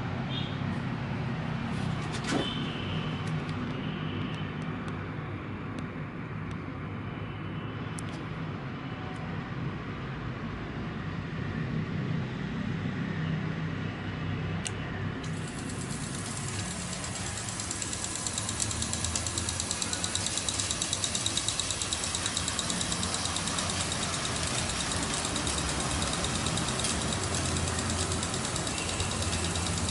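A low steady hum with a sharp click about two seconds in. From about halfway, the hiss of water spraying from a garden-hose rooftop sprinkler joins it.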